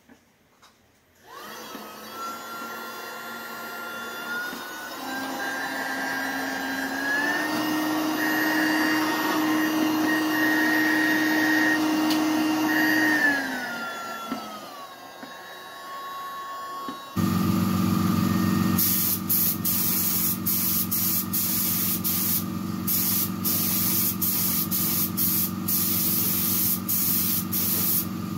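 The small battery-powered blower motor of a home-made air-fed face mask starts about a second in and runs with a whine that climbs in pitch in steps, holds, then falls before stopping. About two thirds of the way in, the sound changes to a paint spray gun hissing in short, repeated bursts over a steady low hum.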